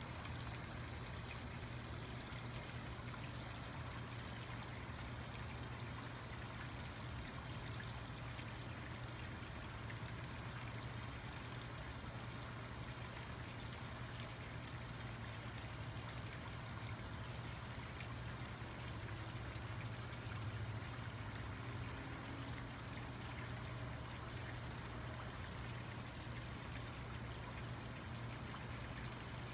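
Water spilling steadily over a small stacked-stone waterfall into a garden pond, with a steady low hum beneath it.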